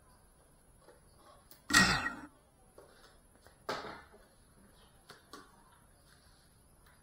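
Two knocks from someone handling things at a shelf, a louder one about two seconds in and a softer one about a second and a half later, then a couple of faint clicks, in a quiet room.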